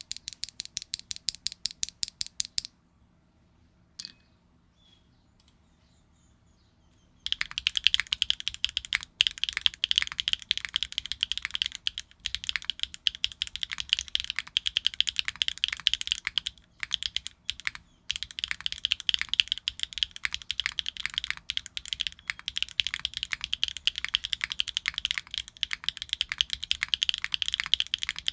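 Clacky mechanical keyboard with HMX Moonlit Bleu linear switches, on a foamless Neo 65 with a carbon fiber plate and GMK keycaps, being typed on. A quick, even run of keystrokes lasts about two and a half seconds. After a pause of several seconds with a single click, fast continuous typing runs on from about seven seconds in.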